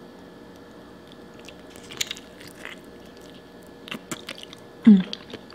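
Close-up mouth sounds of a person biting into and chewing a sauce-covered boiled potato stuffed with shrimp: scattered wet smacks and clicks, with a short hum of the voice near the end.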